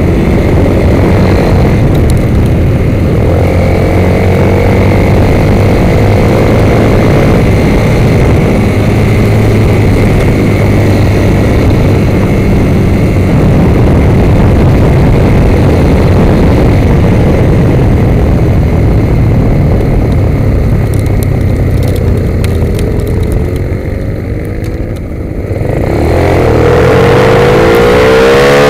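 Sport motorcycle engine running hard at track speed, heard from a camera on the bike with heavy wind rush over the microphone. About 23 seconds in the throttle closes and the sound drops for a moment, then the revs climb again as the bike accelerates.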